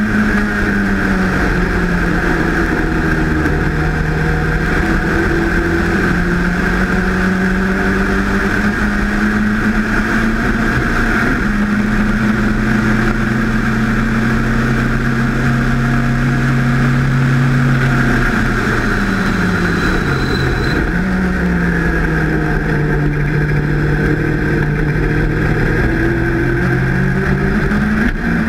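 Onboard sound of an open-cockpit sports racing car's engine pulling hard at high revs, around 6,000–6,800 rpm, with steady wind rush. The engine note steps with a gear change about 11 seconds in, then dips sharply and climbs again around 19 seconds in as the car lifts and slows for a corner.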